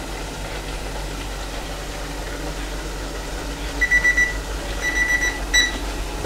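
Digital kitchen timer alarm going off about four seconds in: three quick bursts of rapid high beeps, marking the end of the frying time. Under it, the steady hiss of onion bhajis frying in a deep-fat fryer.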